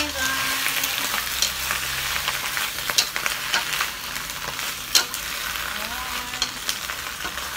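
Lettuce sizzling in hot oil in a wok while a wooden spatula stirs and tosses it, with a steady hiss and sharp knocks and scrapes of the spatula against the wok, the loudest about three and five seconds in.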